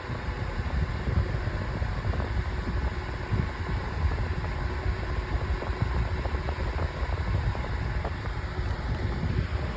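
Five-bladed 12-inch metal table fan running on its high speed, a steady whir of blades and air. A heavy, uneven low rumble underneath is the fan's strong airflow buffeting the microphone.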